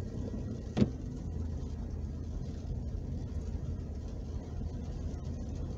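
Inside a car driving on a wet road in heavy rain: steady low rumble of engine and tyres under an even hiss, with one sharp click about a second in.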